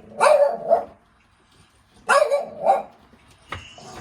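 A pet dog barking: two quick barks, then two more about two seconds later.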